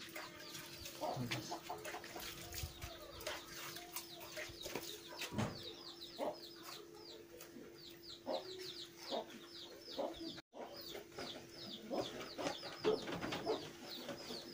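Chickens clucking and peeping: a long run of short, high, falling peeps over a faint steady hum, with scattered clicks from hands working raw fish.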